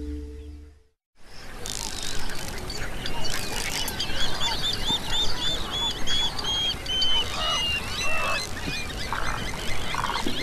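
Music fades out, and about a second in a dense chorus of wild birds begins. Many calls overlap, while one bird repeats a looping whistle about two to three times a second that gradually drops lower and flattens out.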